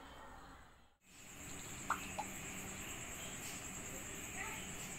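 Crickets trilling steadily, one continuous high pulsing note, starting after a brief silence about a second in. Two short faint chirps come just after two seconds in.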